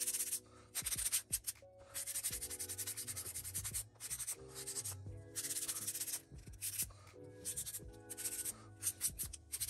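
Acrylic nails being filed: a rasping scrape in repeated bursts of quick strokes, each burst up to a second or so long with short pauses between, over background music.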